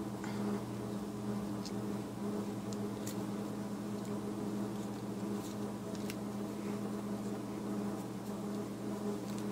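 A steady low hum made of several held tones, with a few faint light clicks as small craft pieces are handled.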